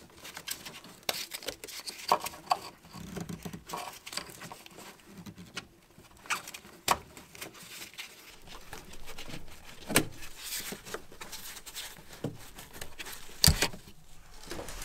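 Irregular small clicks, rattles and knocks of gloved hands working the plastic electrical connector and air-line fittings on a Mercedes W212 Airmatic suspension compressor, with a few sharper clicks spread through.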